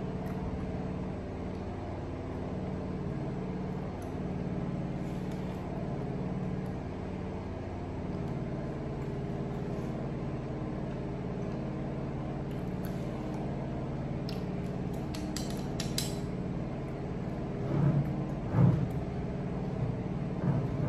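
A steady low mechanical hum, like a motor running, under the whole stretch. In the second half come a few light clicks of utensils against a ceramic bowl, then a couple of louder brief sounds near the end.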